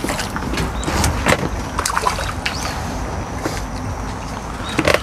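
Water splashing and sloshing as a hooked fish is brought to the bank and scooped with a landing net, with several sharp clicks and knocks from handling the net.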